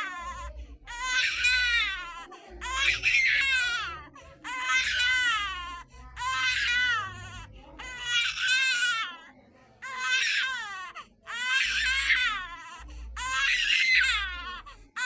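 Baby crying sound effect, pitched up slightly: rhythmic wails about every second and a half to two seconds, each with a wavering pitch that bends up and down, separated by short breaths.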